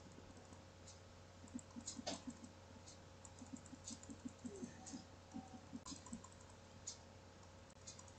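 Faint, quick, irregular taps of a stylus dotting lines on a drawing tablet, a few a second, starting about a second and a half in and dying away near the end.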